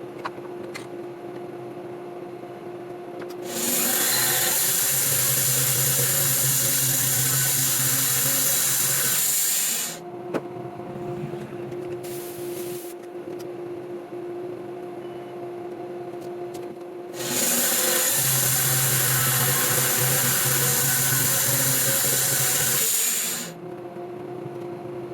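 Sawmill cutting through a white oak log in two passes of about six seconds each, the blade noise starting and stopping fairly abruptly. A steady machine hum runs between and under the cuts.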